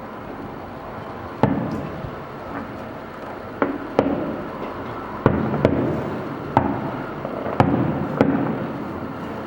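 Fireworks going off: about eight sharp bangs at uneven intervals, each trailing off in a short rumble, over a steady background noise.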